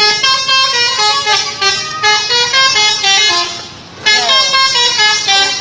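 Indonesian 'telolet' multi-tone bus air horn playing a quick tune of stepping notes. It fades briefly about three and a half seconds in, then starts again with falling glides.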